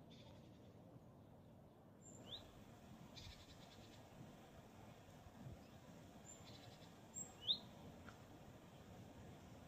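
Small bird calling: two short upward-sliding chirps about five seconds apart, the second the loudest, with a few thin, very high peeps between them, over an otherwise near-silent hush.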